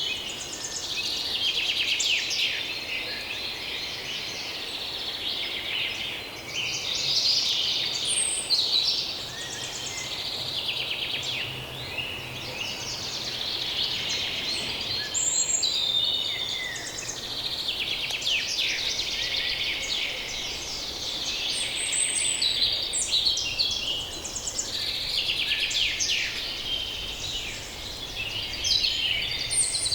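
Chorus of many songbirds singing and calling over one another without a break, high chirps, trills and whistles from several species at once. A faint low hum of distant human activity lies underneath.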